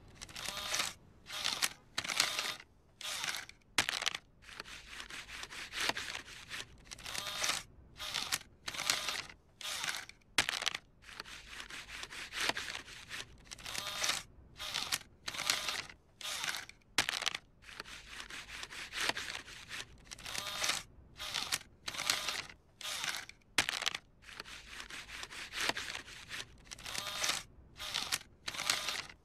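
Cartoon bill acceptor on a coin-operated kiddie ride whirring in short bursts, again and again, as it draws in a crumpled dollar bill and pushes it back out, rejecting it.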